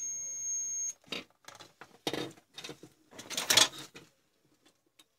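Digital multimeter's continuity buzzer sounding a steady high beep for about a second while the probe touches the CFL tube's filament pins, showing continuity through the filament. Then clicks and rustling as the probes and bulb are handled, loudest about three and a half seconds in.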